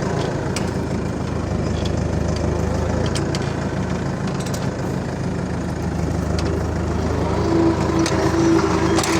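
New Holland TD4.100F tractor's diesel engine running steadily, with scattered light clicks. A steady higher whine joins about seven and a half seconds in.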